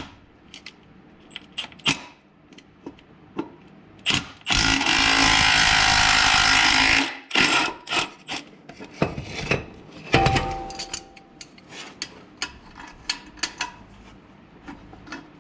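A power tool runs steadily for about three seconds near the middle, amid scattered clinks and knocks of tools on metal. A heavier metallic knock with a brief ring comes about ten seconds in.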